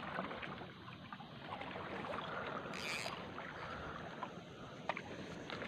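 Quiet, steady wash of water and wind around a small outrigger boat, with a short hiss about three seconds in and a few faint clicks near the end.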